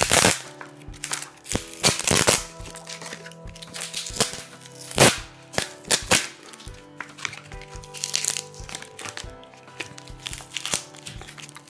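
Clear plastic wrapping and tape crinkling and crackling as they are peeled off a lithium-polymer (LiPo) battery pack, in irregular sharp crackles. Background music plays underneath.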